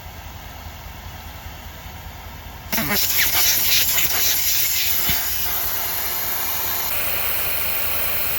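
Air hissing steadily out of a vehicle tyre as it is let down for a rough off-road track. The hiss starts suddenly about three seconds in and runs on loudly.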